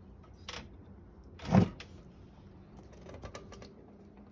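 An old wooden sliding glass door being slid open: a short rumble and knock about a second and a half in, the loudest sound here. A few light clicks and rustles follow a couple of seconds later.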